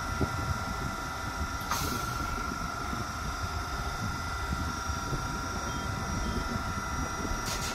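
South Western Railway electric multiple unit standing at the platform, its equipment giving a steady hum with a constant whine over a low rumble. A short hiss sounds about two seconds in and again near the end.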